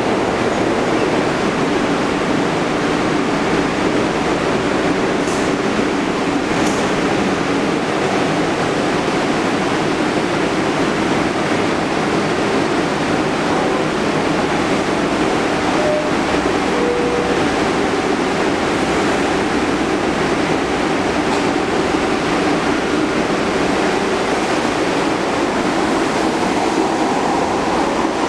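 New York City subway shuttle train of R62A cars in a station: a steady rumble and hum, with the train starting to move along the platform near the end.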